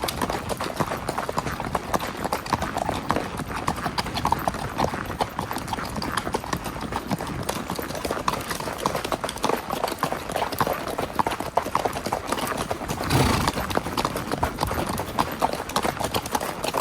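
Spotted saddle horse's hooves clip-clopping in a quick, steady rhythm. A short, louder rush of noise comes about thirteen seconds in.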